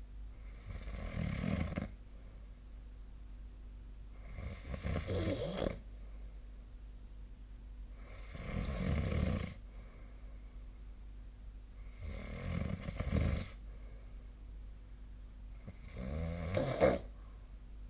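A person snoring in their sleep: five snores, about one every four seconds, each lasting about a second and a half, the last one the loudest.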